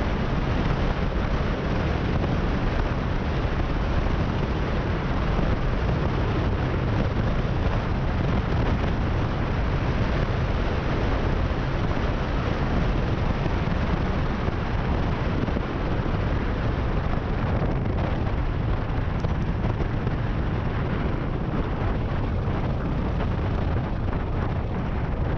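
Steady rush of wind buffeting the microphone on a moving motorcycle, with the bike's engine and tyre noise underneath at a constant cruising speed.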